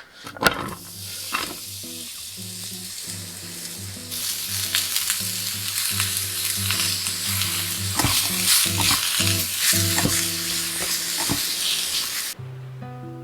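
A steady hiss, louder from about four seconds in, that cuts off abruptly near the end, with a few sharp clicks in it. Soft background music plays underneath.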